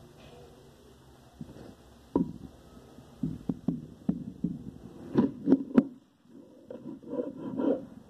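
Kitchen knife chopping a green vegetable on a wooden cutting board: a run of sharp knocks of the blade striking the board, several a second, starting about two seconds in, with a brief pause about six seconds in before the chopping resumes.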